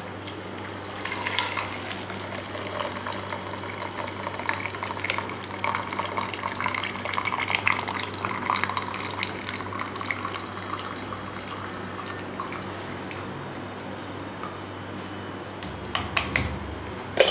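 Hot herbal decoction (kashayam) poured through a plastic tea strainer into a steel tumbler, splashing and bubbling for about ten seconds and loudest midway. A steady low hum runs underneath, and a few clinks of steel vessels come near the end.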